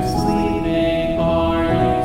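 Slow, calm background music of sustained held notes changing about once a second over a low bass, with a soft choir-like or sung quality.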